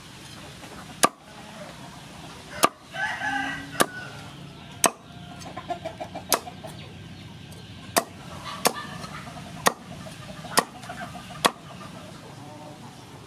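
Large knife chopping through crispy fried pork skin onto a wooden cutting board: about ten sharp strikes, roughly one a second. Chickens clucking in the background between the strikes.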